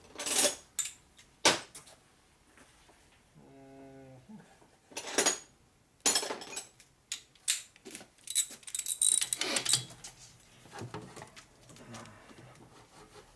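Steel hand tools clinking and clattering against each other and the aluminium cylinder head of a Harley Sportster engine: a wrench and ratchet working the head bolts down tight, in a string of sharp clinks and short rattles. About three and a half seconds in there is a brief whine lasting about a second.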